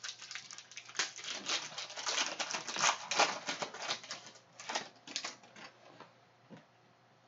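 Foil wrapper of a Panini Mosaic basketball card pack crinkling and crackling as it is torn open and the cards are pulled out, in quick irregular crackles that die away about six seconds in.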